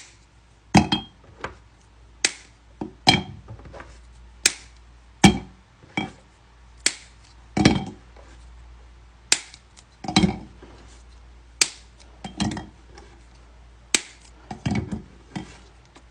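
Plastic marker caps being pressed shut onto markers: a run of sharp clicks, about one a second and unevenly spaced, some coming in quick pairs as a cap snaps home.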